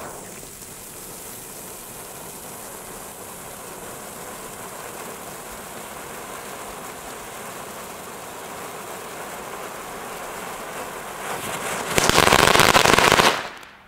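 Red Geysir Kaliber A firework fountain burning with a steady hiss. About twelve seconds in it ends in a much louder burst of crackling lasting just over a second, then cuts off.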